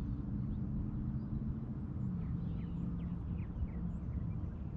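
A motor running with a steady low hum, its pitch shifting slightly about two seconds in, while small birds chirp faintly.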